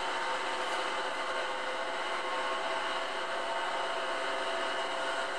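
A steady, even hiss with a few faint steady hum tones and no distinct events.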